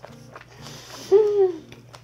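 Background music, with a woman's short hummed vocal sound about a second in, falling slightly in pitch, as she starts eating.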